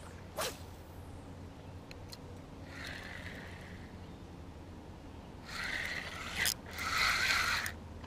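Spinning reel being cranked in short spells to retrieve a lure, its gears whirring, after a brief swish about half a second in.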